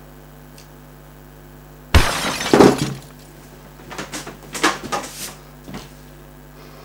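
A carbon-fibre travel tripod dropped onto a hard floor: one sudden loud crash and clatter about two seconds in, lasting about a second. A few lighter knocks and clicks follow as it is handled and picked up.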